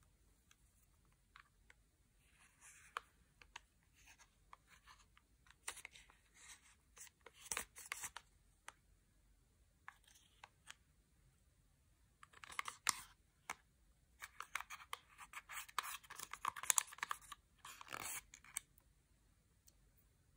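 Plastic spatula scraping pressed powder makeup out of a compact: irregular dry scratching with light clicks, busiest in the second half.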